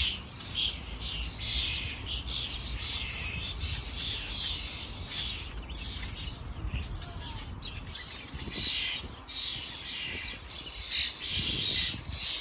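Common starlings chattering: many short, overlapping calls with no break, over a low rumble.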